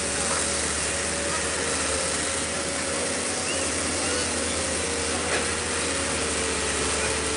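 Kato hydraulic excavator's diesel engine running steadily close by, an unchanging drone with a low hum.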